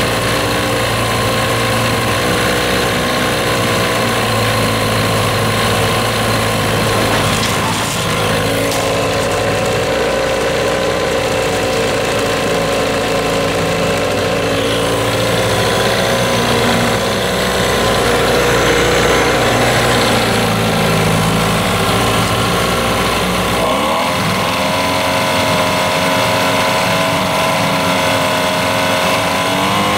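Johnson 15 hp outboard motor running in a test tank, its propeller churning the water. Engine speed shifts a few times and picks up near the end. This is a test run to see whether it still overheats and steams, with the thermostat left out.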